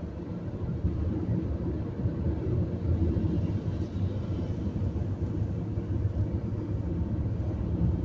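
Steady low rumble of a car's tyres and engine, heard from inside the cabin while driving on a wet expressway.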